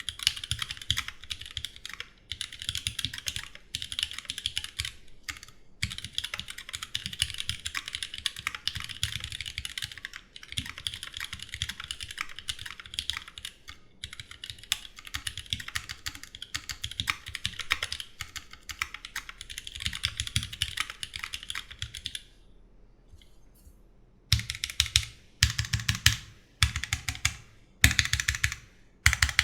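Typing on a Duck Jetfire mechanical keyboard with rebuilt, lubed vintage Cherry MX Black linear switches and GMK keycaps: a fast, continuous patter of keystrokes with short breaks. After a pause of about two seconds near the end come separate, louder clusters of keystrokes about a second apart.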